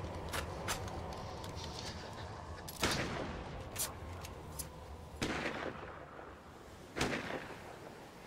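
Gunshots: three loud bangs, each with a trailing echo, about three, five and seven seconds in, among several fainter sharp cracks, over a steady low rumble.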